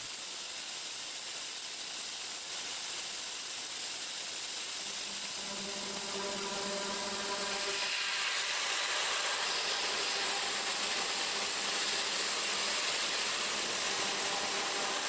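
EXAIR Air Wipe ring air knife blowing compressed air in a steady high hiss as a PVC pipe is passed through the ring to wipe it dry. About five seconds in, a faint hum with overtones joins the hiss, which grows a little louder.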